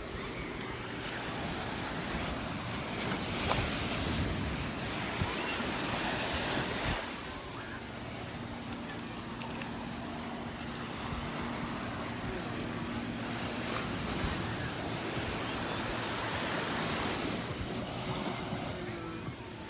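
Surf breaking and washing up on the beach, swelling and easing as the waves come in.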